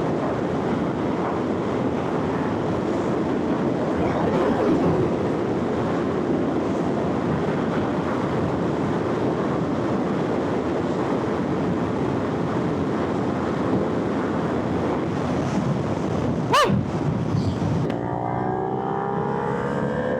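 Motorcycle ridden at motorway speed, with heavy wind rushing over the helmet microphone that buries the engine. About three-quarters of the way through there is one short, sharp blip. Near the end the engine note comes through, rising as the bike accelerates.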